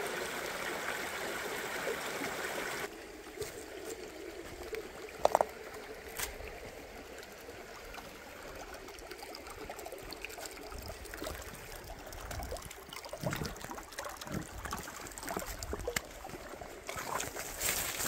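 A small creek trickling steadily, cut off abruptly about three seconds in. After that, a quieter background with scattered clicks and light rustling.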